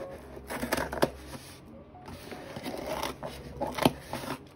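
Scissors cutting and scraping along the packing tape of a cardboard shipping box, with long fingernails tapping and rubbing on the cardboard. There are several sharp clicks, the loudest about a second in and near the end.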